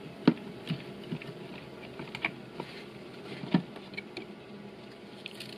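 Scattered light clicks and knocks of the valve body (electronic hydraulic control unit) of a Mercedes 9G-Tronic transmission being lifted up off the aluminium transmission case, with a sharper knock near the start and another about three and a half seconds in.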